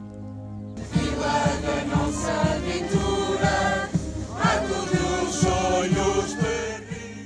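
Music: a soft held chord gives way about a second in to a group of voices singing together over a steady drum beat of about two strokes a second.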